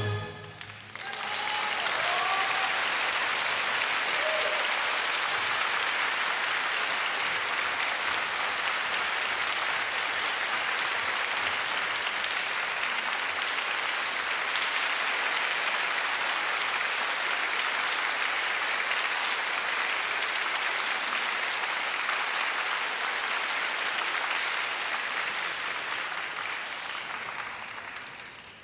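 Audience applauding steadily in a concert hall as a band performance ends. The applause swells in about a second in and dies away over the last few seconds.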